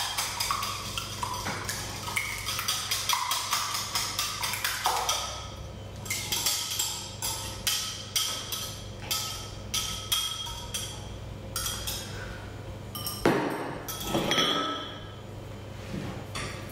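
Wire whisk beating eggs in a small bowl: rapid rhythmic clicking of metal wires against the bowl, slowing to spaced clicks and clinks after about five seconds. Near the end there are a few louder knocks of bowls and utensils.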